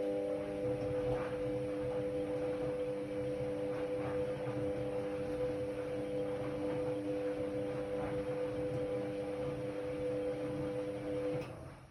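Ariston Margherita 2000 AL 108 D washer-dryer giving off a steady electrical hum over a light rushing noise, which cuts off suddenly near the end.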